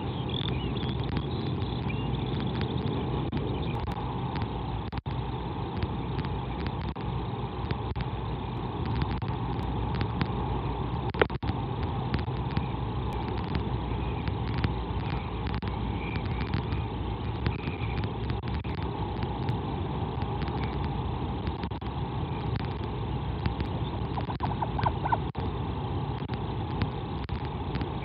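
Steady wind noise on an outdoor camera microphone, with a low hum underneath.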